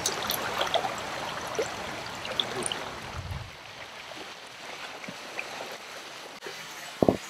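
Rain-swollen river water rushing steadily over riffles, an even hiss of flowing current. A short thump near the end.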